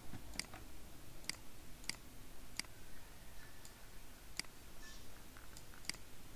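Computer mouse clicking: about six sharp single clicks, irregularly spaced.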